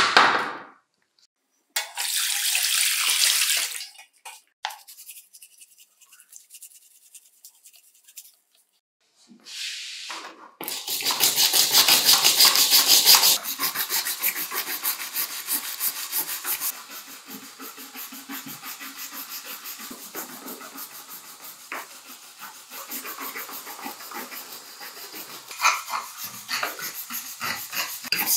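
An aluminium drill housing set down in a plastic tray with a knock. About ten seconds in, a stiff hand brush starts scrubbing it in soapy water with quick, even strokes, loudest for the first few seconds.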